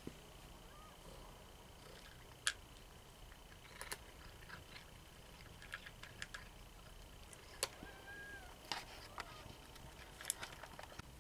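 A cat eating dry kibble from a bowl: scattered sharp clicks and crunches at irregular intervals, with one short squeak a little after the middle. A faint steady high whine runs underneath.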